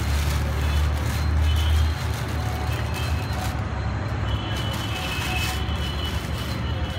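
Low engine rumble, heaviest for about the first two seconds and then easing, over steady background noise.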